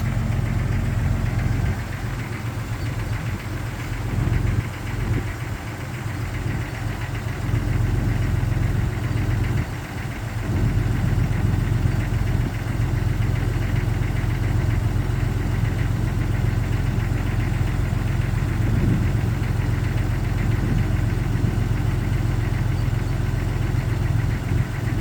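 1999 Jeep Cherokee XJ engine idling steadily after a cold start, with a knock that the owner takes for piston slap.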